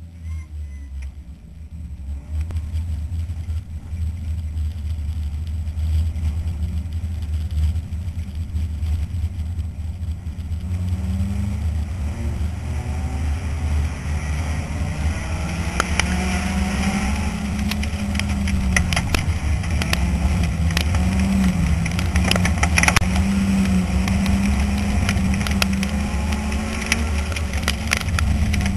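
In-cabin sound of a four-cylinder dirt-track race car's engine: a low drone at first, then about a third of the way in the engine note starts rising and falling over and over with the throttle. From about halfway, many sharp clicks and knocks come in over the engine.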